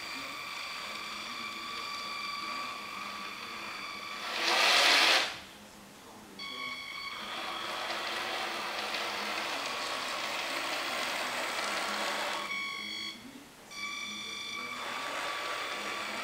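Two NWSL Stanton drive trucks of a battery-powered HO scale rail car running on remote control, a steady electric-motor and gear whine that cuts out and comes back a few times as the car is stopped and started. About four and a half seconds in, a loud rushing noise lasts about a second.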